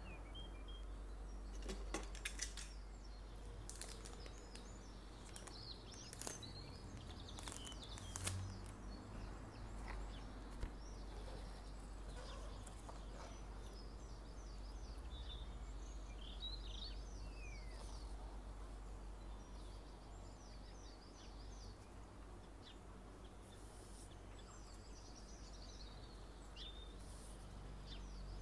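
Cellophane wrap crinkling and tearing off a cardboard perfume box, with sharp clicks and rustles of handling mostly in the first ten seconds, then quieter handling of the carton. Birds chirp in the background over a faint steady low hum.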